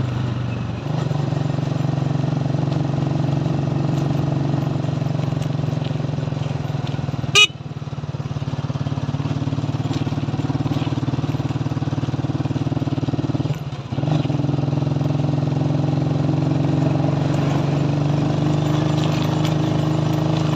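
Motorcycle engine running steadily while being ridden, heard from the rider's seat. A brief sharp click, the loudest moment, comes about seven seconds in, and the engine sound dips briefly near fourteen seconds.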